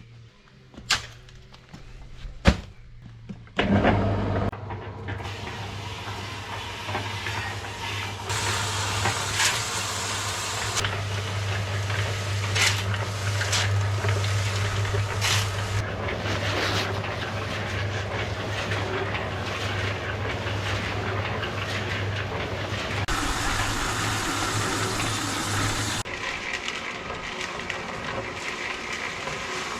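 Two sharp knocks, then an electric concrete mixer running with a steady low hum as its drum churns the concrete mix. The motor hum stops near the end while a softer scraping noise carries on.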